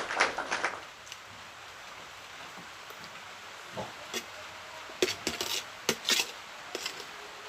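Close-miked eating sounds of chicken feet being chewed: a few scattered smacks and clicks from the mouth and utensils. They follow a noisy rustle that dies away within the first second.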